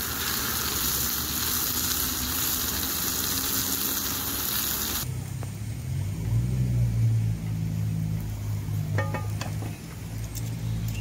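Lamb pieces sizzling as they fry in a hot pan: an even hiss that cuts off suddenly about halfway through. A steady low hum with a few faint clicks follows.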